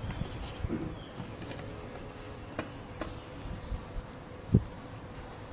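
Light clicks and taps of small parts being handled, with one louder knock about four and a half seconds in, over a faint steady hum.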